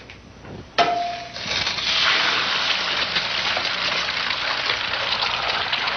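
An egg cracked sharply against a hot frying pan about a second in, then sizzling steadily in the hot fat as it fries.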